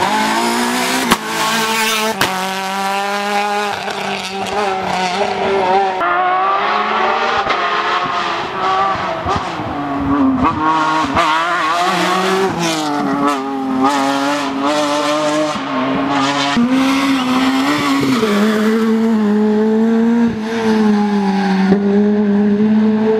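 Rally car engine driven hard on a stage, its pitch climbing and dropping again and again as it accelerates and lifts between corners.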